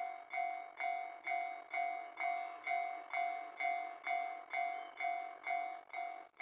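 Japanese level-crossing warning bell ringing in an even, repeated ding of about two strikes a second, each ring fading before the next, warning that a train is approaching.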